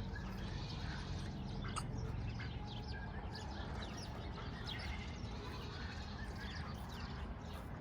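Birds chirping: many short, high chirps scattered throughout, over a steady low rumble.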